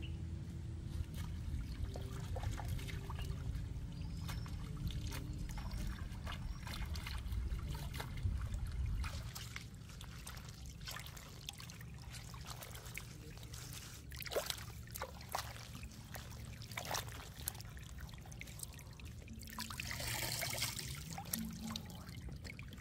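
Shallow stream water trickling, with irregular splashes and clicks as lettuce leaves are swished and rinsed in it by hand; a longer burst of splashing near the end.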